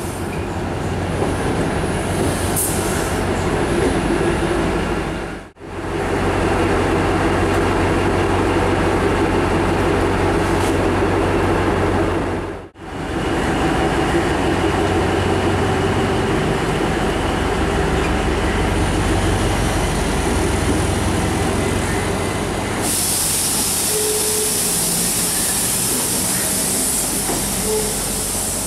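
Diesel multiple unit power car's engine running with a steady drone as the train moves slowly along the platform, broken by two brief gaps about five and thirteen seconds in. From about 23 seconds in, a loud high hiss joins the engine.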